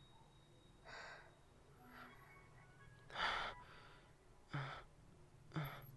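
A young woman breathing hard in short gasps, five breaths about a second apart, the loudest about three seconds in, as if out of breath from searching and calling out.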